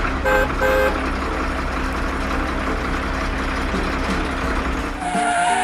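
A tow truck's engine running steadily, with two short horn beeps about half a second in. Near the end a rising whine with a hiss comes in.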